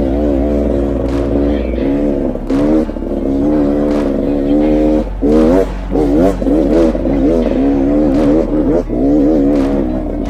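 Off-road motorcycle engine revving up and down over and over, its pitch climbing and falling back about once a second as the throttle is worked.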